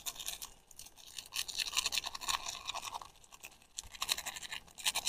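Irregular crinkling and scratchy rustling of a seasoning sachet as stock powder is shaken and tapped out of it over a cooking pot.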